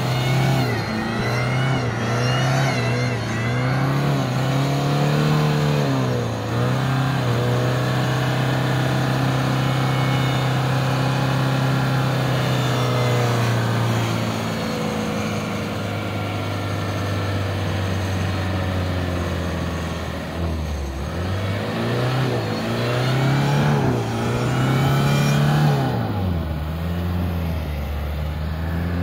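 Toyota Hilux engine revving hard and easing off again and again as the truck strains in deep mud, held at high revs for several seconds in the middle, with a brief drop about two-thirds of the way through before it revs up once more.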